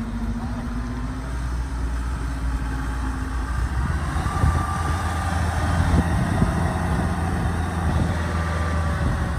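Engines of a loaded tracked rice carrier and a Kubota DC93 combine harvester running steadily, with a low drone whose note shifts about four seconds in.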